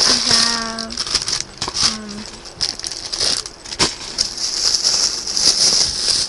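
Plastic packaging crinkling and rustling as it is handled close to the microphone, with a few sharp clicks, the loudest about four seconds in. A short hummed voice sound comes near the start and again about two seconds in.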